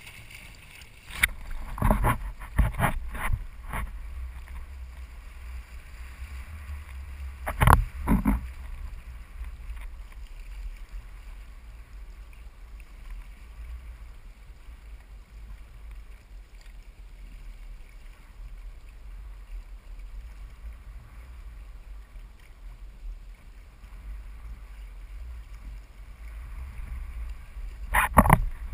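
Sailing kayak under way in choppy water: a steady low rumble of wind on the camera and water rushing past the hull, broken by a cluster of sharp knocks in the first few seconds, a pair of knocks about eight seconds in, and more near the end.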